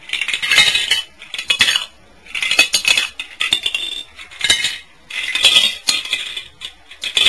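Plastic Lego bricks being pulled apart and clattering onto a tile floor, clicking and rattling in about six bursts.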